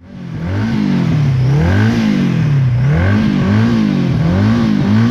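1979 Honda Gold Wing GL1000's flat-four engine revving, the throttle blipped up and let fall about once a second.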